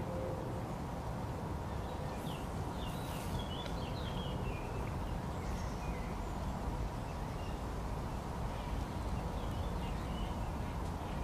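Small birds chirping and twittering in short phrases, mostly from about two to four seconds in and again near the end, over a steady low rumble.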